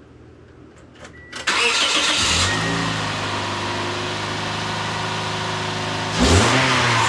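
A 2008 Toyota Yaris's four-cylinder engine cranked by the starter, catching about two seconds in and settling into a steady idle, then revved once briefly near the end. The leaking exhaust manifold flange is clamped shut with vice grips as a temporary fix, and the exhaust sounds much better.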